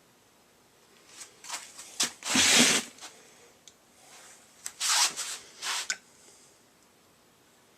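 Two bursts of rubbing and rustling: one a little over a second in, the louder one around two and a half seconds, and a second one around five seconds.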